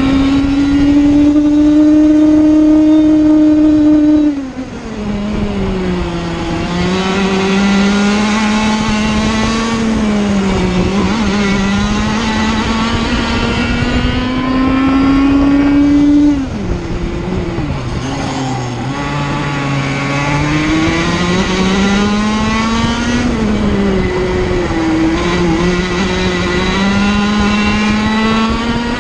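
A Sirio TT85 100cc two-stroke kart engine at race speed, its pitch climbing steadily as the kart accelerates. The note drops sharply off the throttle about four seconds in and again about sixteen seconds in, then climbs again out of each corner.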